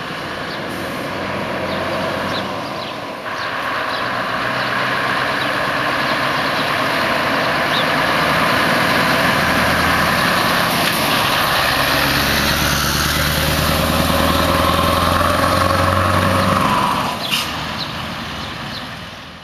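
Scania V8 truck engine pulling a loaded semi-trailer away, its low engine note growing louder as the truck comes past and dropping off as it drives away. A brief sharp sound comes near the end.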